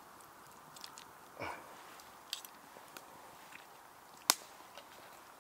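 Knife and fork carving roast lamb on a wooden log board: quiet cutting with a few soft taps, and one sharp click about four seconds in.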